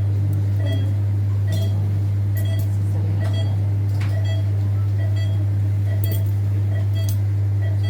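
Steady low electrical hum, with a short high beep repeating about every 0.8 s, like an operating-theatre patient monitor's pulse beep. A few faint metallic clinks of surgical instruments.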